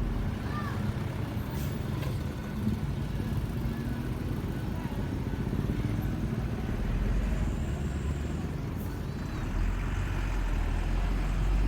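Road traffic with heavy vehicle engines running past: a steady deep rumble that swells about seven seconds in and again near the end.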